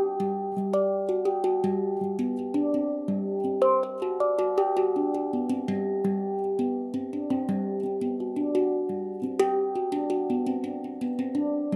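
Instrumental background music: a quick, even run of ringing pitched notes over sustained tones.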